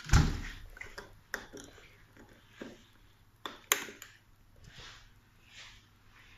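Handling of a DC solar chest freezer: a low thump right at the start, then a few sharp clicks and knocks, the loudest a little over three and a half seconds in.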